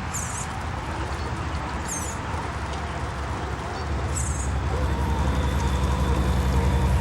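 Scale RC truck's engine-sound module putting out a low, pulsing diesel rumble that grows louder about four seconds in, then cuts off abruptly at the end. Faint short high chirps come a few times.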